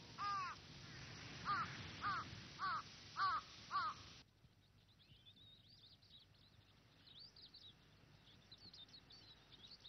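Crows cawing: six harsh calls, one near the start, then five in quick succession about half a second apart. After an abrupt cut, faint high twittering of small birds.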